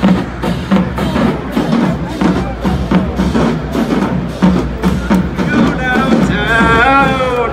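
HBCU marching band playing: the drumline's bass drums and percussion keep a steady beat of about three strokes a second, and the brass comes in near the end with a bending, wavering phrase.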